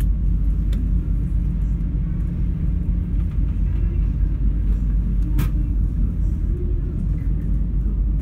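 Ferry's engines running with a steady low rumble, heard from inside the ship. A sharp click sounds about five seconds in.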